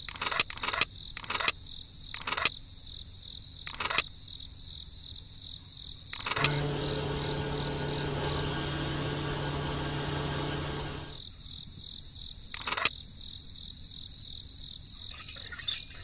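Crickets chirring steadily throughout, with a handful of sharp clicks. About six seconds in, a small electric motor hums steadily for about five seconds, then stops.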